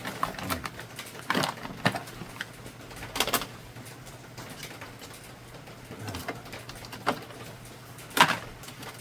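A series of short, sharp clicks and knocks, about seven, spaced irregularly, over a steady low hum.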